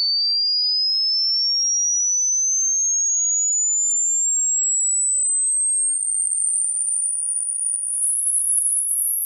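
A single pure electronic test tone sweeping smoothly upward in pitch from high to very high, as in a hearing-age test: the point where a listener stops hearing it reflects age-related loss of high-frequency hearing. About six seconds in, the tone turns slightly grainy and its loudness wavers.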